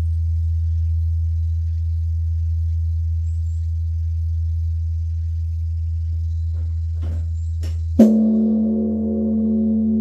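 A steady low hum, then about eight seconds in a Korean Buddhist temple bronze bell (beomjong) is struck once with its wooden striking log. The bell rings on in several sustained tones that swell and fade.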